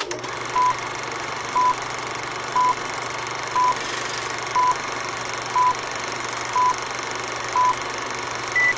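Film-leader countdown sound effect: a steady whirring hiss and hum with a short beep once a second, eight in all, then a single higher-pitched beep near the end as the count reaches its last number.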